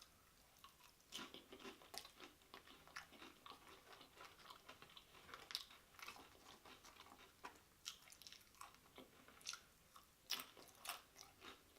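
A person chewing a mouthful of loaded nachos, with faint, irregular crunches and mouth clicks from tortilla chips being bitten and ground.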